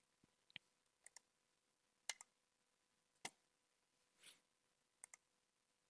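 Near silence broken by a handful of faint, separate computer mouse clicks about a second apart, with a soft brushing noise about two-thirds of the way through.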